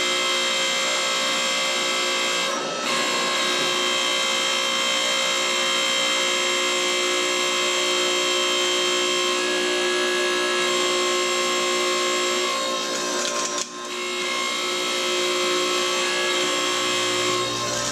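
Hydraulic pump of a homemade hydraulic forging press running steadily with a whining mix of tones while the press is worked, dipping briefly twice, with a lower hum joining near the end.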